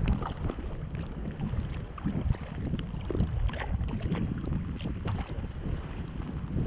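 Wind buffeting the microphone in an uneven low rumble, with a few faint light ticks.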